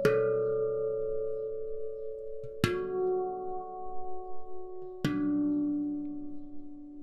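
Hand-sunk stainless-steel handpan in B Low Mystic tuning, played slowly with the fingers. Three single notes are struck about two and a half seconds apart, each lower than the last, and each rings on long with its overtones.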